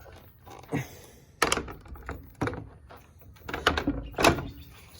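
Irregular hard knocks and clicks, about six of them, as a Makita 40 V cordless track saw is handled.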